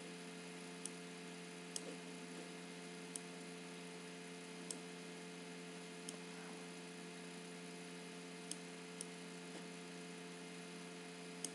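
Computer mouse clicking: about eight short, sharp clicks at irregular intervals over a faint, steady electrical hum.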